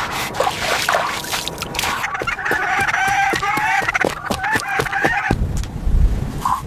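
Rooster crowing: one long wavering call of about three seconds, with scattered knocks before it and a low rumble after it.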